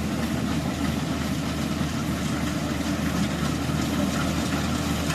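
Heavy farm-machine engine running steadily at an even speed, with a constant low drone.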